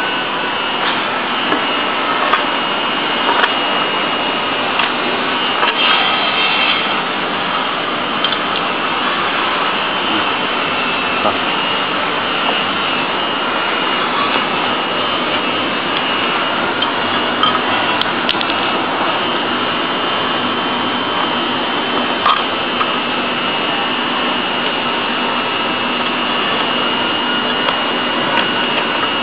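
Steady, loud machine-like whooshing noise, with a few light clicks and taps scattered through it.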